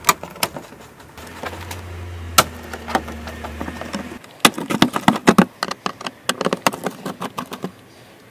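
Screwdriver undoing the screws that hold a car's plastic wheel-arch liner and bumper, with a run of sharp clicks, knocks and small rattles. A steady low hum runs for about three seconds from a second in.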